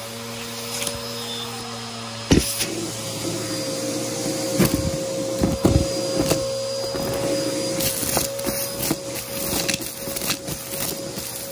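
Aeroswift vacuum cleaner running with a steady motor whine while it sucks up dry crunchy debris, which crackles and pops sharply through the machine, with one loud pop about two seconds in and a burst of them in the second half.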